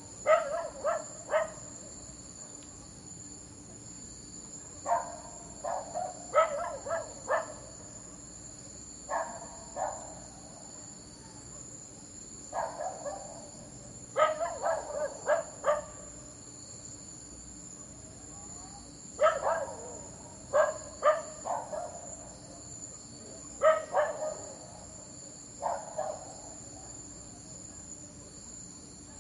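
Dogs barking in short bursts of a few barks each, about every four seconds, over the steady high-pitched chirring of crickets.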